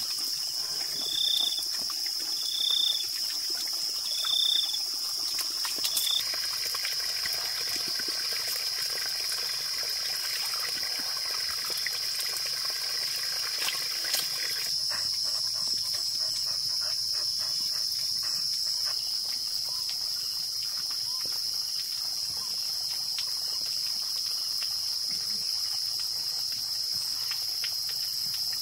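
Steady high-pitched drone of insects calling outdoors, with a short high chirp repeated about every second and a half through the first six seconds.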